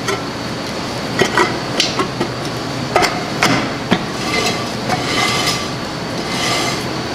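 Cast-iron rear brake drum on a Jeep Cherokee's Dana 44 axle being worked onto the hub by hand: several sharp metallic clunks, then a scraping rub about five seconds in as the drum drags over the brake shoes. The drag means the shoes are adjusted out far enough to contact the drum.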